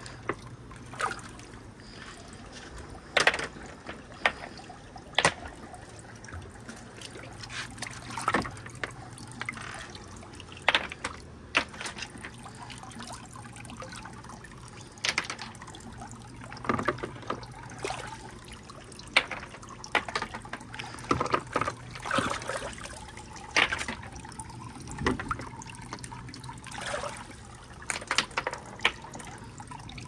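Water trickling through a marble run's tracks, with marbles and wooden balls knocking and clacking at irregular moments as they roll.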